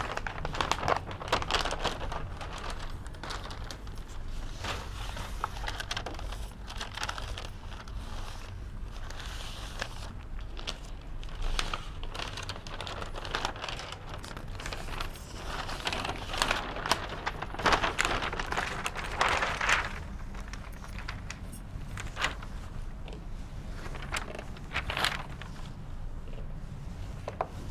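Sheets of paper rustling and crinkling as they are handled and put up on a whiteboard, in irregular spells that are busiest about two thirds of the way through.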